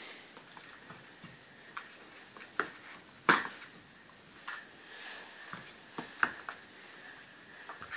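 Puppies' claws and paws clicking and tapping on a hard wooden floor as they scramble about, in scattered irregular taps, the loudest about three seconds in.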